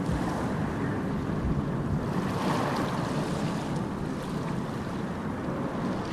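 A steady rushing wash of noise, like surf or wind over the microphone, with a few faint clicks.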